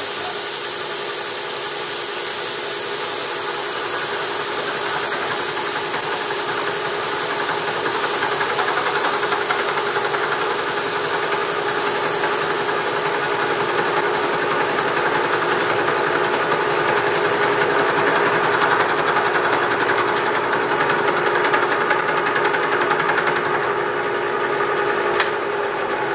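Bridgeport vertical milling machine running and cutting the base of a feed nut: a steady hum with a hiss over it, a little louder from about eight seconds in. A single sharp click near the end.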